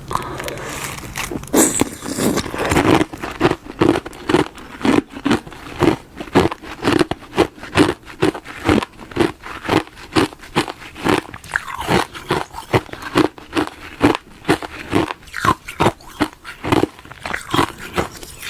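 Ice being bitten and chewed close to the microphone: a burst of cracking bites near the start, then steady rhythmic crunching of about two chews a second.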